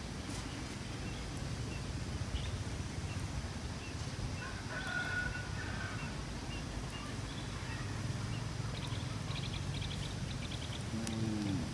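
Outdoor rural ambience under a steady low rumble, with birds calling: a couple of short whistled notes about halfway through and a quick run of high chirps near the end, then a short falling call just before it ends.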